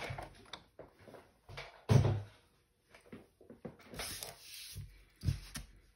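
Craft supplies and paper being handled on a desk: a sharp knock about two seconds in, another near the end, with softer knocks and rustling between.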